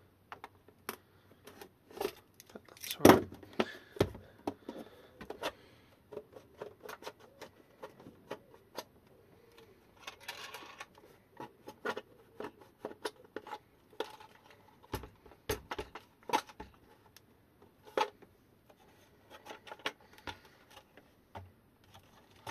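Hands working on a plastic e-bike battery case: a utility knife slicing through the sticker over the case seam, and scattered clicks, taps and knocks of the plastic shell being handled and eased apart, the loudest knock about three seconds in.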